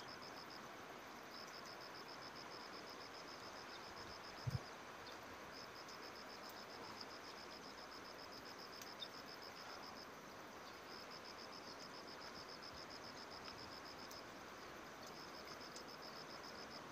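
An insect calling in a fast, high pulsed trill, in bouts of a few seconds with short pauses between, over a steady faint hiss. A single brief low thump sounds about four and a half seconds in.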